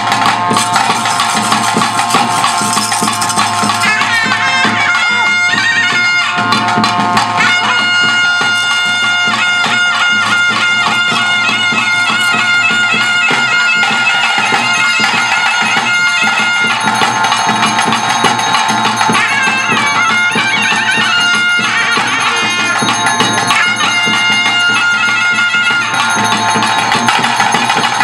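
Loud traditional ritual folk music: a piping wind melody of long held notes over a steady drone, with drumming throughout.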